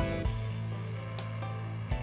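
Music with a drum beat over a held bass note and sustained pitched notes.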